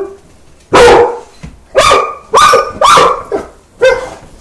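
A large dog barking: five loud, single barks spaced about half a second to a second apart.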